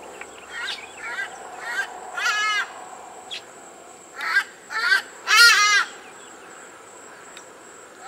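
A pair of trumpeter hornbills calling as they fly over: a series of short calls, each a rising-and-falling note, the loudest and longest about five and a half seconds in.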